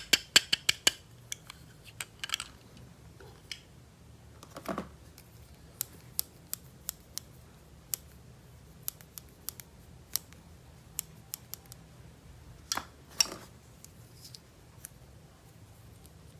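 Toy unboxing handling sounds: sharp clicks and snips of the toy parts and packaging being worked by hand, with a quick run of about ten clicks at the start, then scattered single clicks and two short scrapes.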